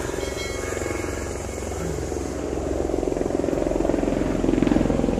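A motor engine running steadily with a fast, even pulse, growing louder toward the end.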